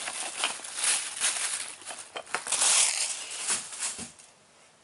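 Packing paper rustling and crinkling as it is pulled off a toy bridge piece, loudest about three seconds in, then dying away.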